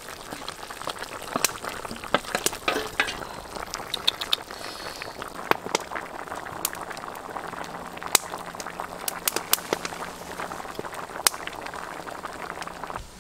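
Broth with vegetables and duck eggs boiling hard in a wok, a steady bubbling with frequent sharp pops. In the first few seconds the eggs are pushed off a metal plate into the pot with a wooden spoon, adding a few knocks and splashes.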